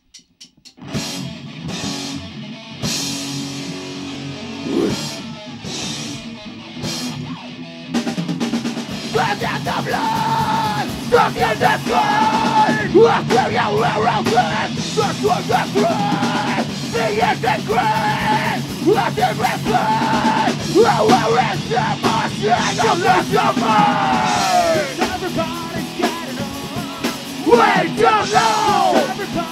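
Rock band playing live: drum kit, electric guitars and bass guitar. It comes in about a second in with accented crashes, the full band drives in at about eight seconds, and a singer's voice joins on the microphone at about nine seconds.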